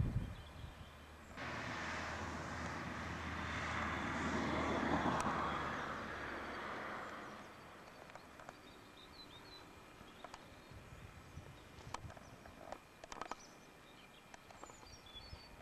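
A broad rushing noise of a passing vehicle that cuts in suddenly, swells for a few seconds and fades away. It is followed by quiet outdoor ambience with scattered small clicks and a few faint bird chirps.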